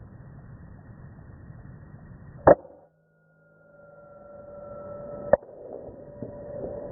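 Two sharp cracks of a PCP air rifle firing, about three seconds apart, the first much louder than the second.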